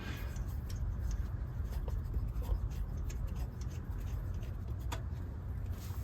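Light clicks and rubbing of hands working on parts of a carburetor, over a steady low rumble.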